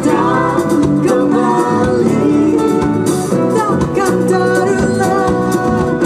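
Live band playing an upbeat jazzy pop song: electric guitar and bass guitar over djembe hand drums, with a singer's voice.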